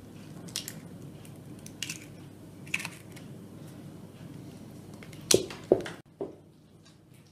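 A spoon working thick choux pastry dough in a bowl: scattered soft clicks and squelches over a faint steady low noise. The sound drops away to near quiet about six seconds in.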